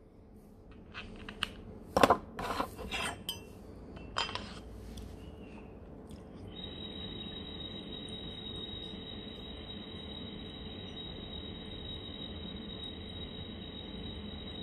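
Glass clinking and knocking for the first few seconds as a glass attachment is fitted onto an original Vapexhale Cloud EVO vaporizer. Then, about six and a half seconds in, the Cloud EVO starts a steady high whistle with a second, slightly lower tone under it, and holds it.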